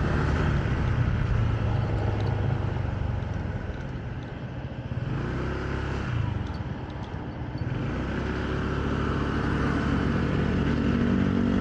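Motorcycle engine running under way, with road and wind noise; the sound eases off about four seconds in and builds again after about eight seconds.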